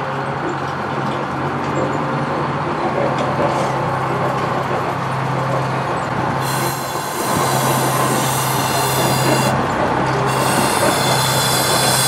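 Diesel switcher locomotive M7's engine running steadily as it slowly pulls a passenger train closer, growing louder. From about halfway a high hiss of steel wheels on the rails joins in.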